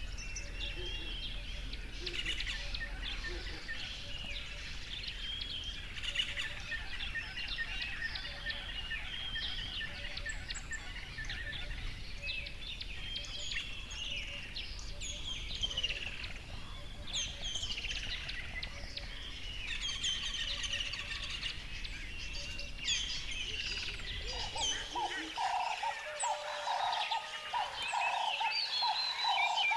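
Wild birds chirping and whistling in dense, overlapping song, several calling at once. Near the end a lower call comes in, repeated in quick pulses a few times a second.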